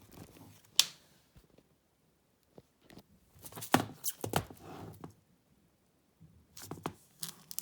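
Small cardboard box being handled: a sharp tap about a second in, then short bursts of clicking and rustling with quiet gaps between.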